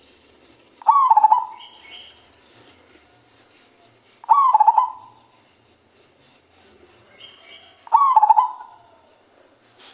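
Male zebra dove (perkutut) cooing in a deep, bass voice. Three short, stuttering coos come about three and a half seconds apart.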